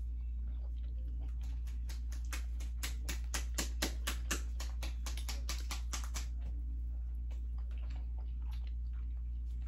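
A person chewing food close to the microphone: a run of quick clicking mouth sounds, about five a second, from about two seconds in until about six seconds in, over a steady low hum.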